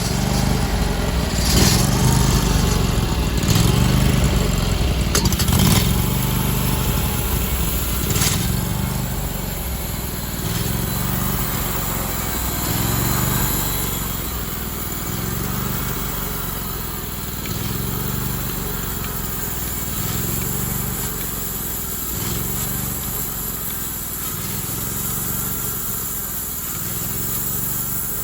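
Gasoline engine of a homemade sawmill running steadily under load while sawing, with a regular pulse in its note about every second and a half to two seconds.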